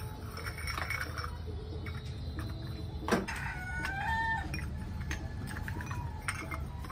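Fired clay tea cups clicking and knocking against each other as they are picked out of the straw ash, with one sharp knock about three seconds in. Just after the knock a chicken calls briefly.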